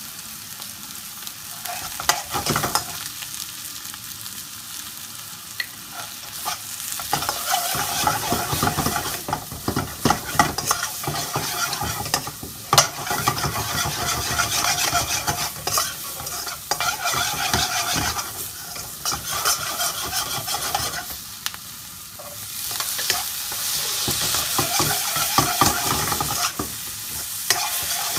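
Vegetables sizzling in a hot wok while a metal spoon stirs and tosses them, scraping and clicking against the wok. The frying and stirring get louder and busier about seven seconds in, ease off briefly later, then pick up again.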